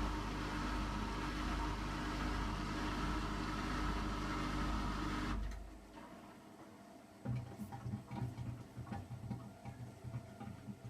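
Hotpoint washing machine draining: the drain pump runs with a steady hum and stops abruptly about five seconds in. After a short lull, a low rhythmic pulsing from the machine starts, about three beats a second, as it moves toward its spin.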